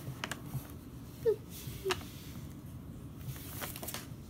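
Faint handling of soft plastic toys on a table: a few light taps and clicks as a squishy is set down and moved. Two brief faint voice-like blips fall in the first two seconds.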